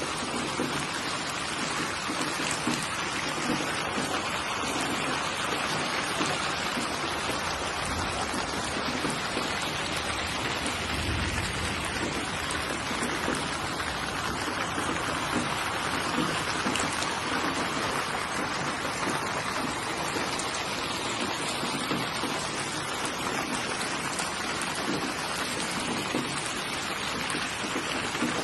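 Steady rain falling and pattering on surfaces, an even hiss of drops with no pauses. A brief low rumble sounds about eleven seconds in.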